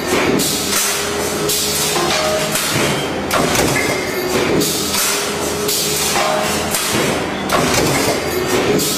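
Stamping press running a multi-station transfer die, with repeated heavy metallic strokes of the press and transfer over a steady machine hum.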